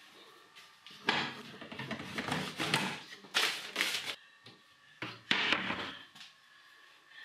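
Kitchen drawer pulled open, then papers and envelopes inside rustled and shuffled by hand while rummaging. The rustling comes in a long stretch and then a shorter one about five seconds in.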